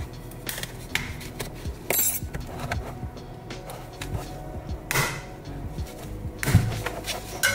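Sharp plastic clicks and knocks, about eight of them spread through, as the input cover of a UGREEN Nexode 300W charger is pried off its casing with a metal spudger and the clips holding it let go. Steady background music plays underneath.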